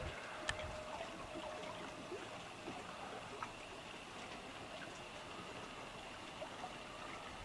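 Small waves lapping faintly at a lake's edge: an even, watery hiss with scattered small ticks and one sharper tick about half a second in.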